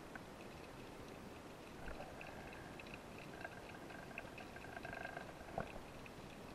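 Underwater ambience picked up by a diver's camera: a low steady hiss with scattered ticks and crackles, a faint whine through the middle, and one sharp click near the end.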